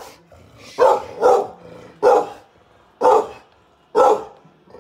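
Staffordshire bull terrier × Rhodesian Ridgeback cross barking loudly as a guard dog at the door. She gives two quick barks about a second in, then three more about a second apart, warning off someone she senses outside.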